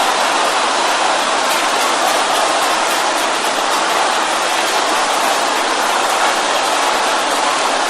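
A large congregation praying aloud all at once: many voices blended into a steady, dense wash with no single voice standing out.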